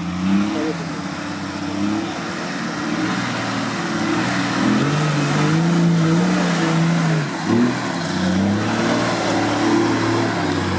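Off-road vehicle engine running under load, revving up and down as it works over rough ground, held at higher revs for a few seconds before dropping back.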